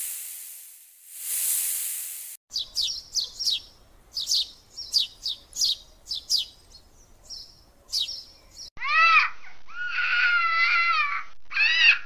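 A snake hissing in two long swells, then a quick run of high, falling chirps, then from about nine seconds in, louder clear calls whose pitch rises and falls.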